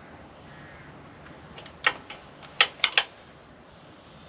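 A few sharp metallic clicks from a spanner tightening a 13 mm bolt on a motorcycle's steel grab rack. One clear click comes about two seconds in, then three more follow in quick succession.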